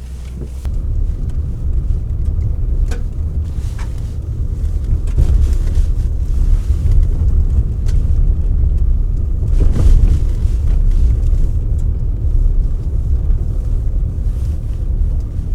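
Truck driving over a bumpy road: a steady, loud low rumble of engine and tyres, with a few knocks as it jolts over the bumps.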